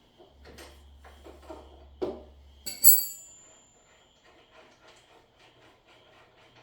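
Objects being handled: scattered knocks and rustles, then one sharp clink about three seconds in that rings briefly at a high pitch, followed by light irregular tapping.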